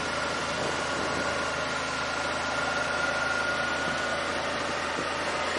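Yamaha Wolverine side-by-side's engine running steadily as it drives along, with a faint thin high whine that fades out about four seconds in.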